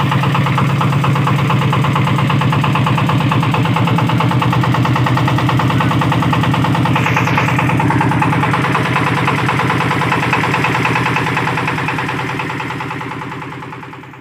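Small boat engine running steadily and close, with a fast even pulsing; it fades out near the end.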